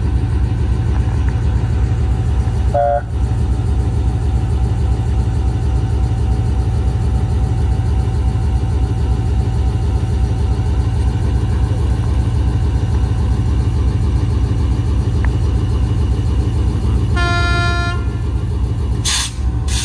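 GE C36-7 (ND5) diesel locomotive's 16-cylinder engine idling with a steady, deep pulsing rumble. About three-quarters of the way through, a short horn toot sounds, and two brief hisses of air follow near the end.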